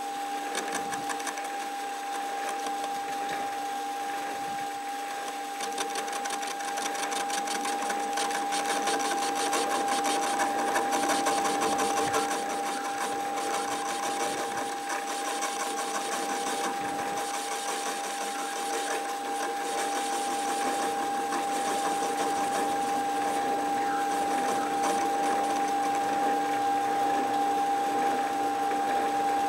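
Metal lathe running with a steady whine of its motor and gearing while a cutting tool faces a mild steel workpiece, with a fine continuous crackle from the cut.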